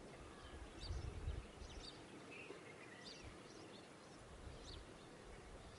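Faint background ambience with small birds chirping in short scattered calls, and a brief low rumble about a second in.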